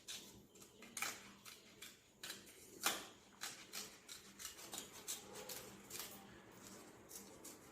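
Scissors snipping through a sheet of paper, a quiet run of short, irregular cuts with one louder snip about three seconds in.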